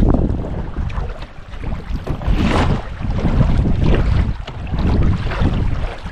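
Canoe being paddled: water splashing and sloshing with the paddle strokes, in irregular swells about every second or so, under a heavy rumble of wind on the microphone.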